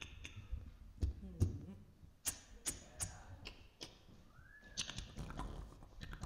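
A cappella vocal percussion from several voices into microphones: scattered mouth clicks, pops and low thumps at an irregular pace, with one short pitched glide rising and falling about four seconds in.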